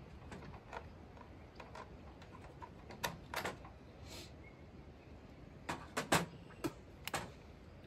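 Handling noises from a new 35cc rear-handle chainsaw being turned over and set down on a work table: a few sharp plastic clicks and knocks about three seconds in, then a quick cluster of them near the end.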